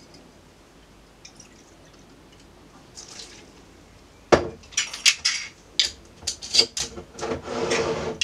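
Glass bottle and glass blender jug: a sharp knock about four seconds in, then a quick run of clinks and taps, and about a second of liquid pouring into the jug near the end.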